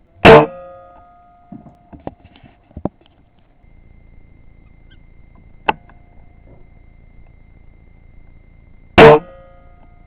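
Weihrauch HW97K .22 spring-piston air rifle fired twice, about nine seconds apart. Each shot is a sharp crack followed by a brief metallic ring, and a few faint clicks fall between the shots.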